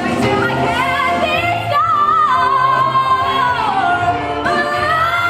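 Musical theatre singing with accompaniment: the voice holds long notes and slides between pitches.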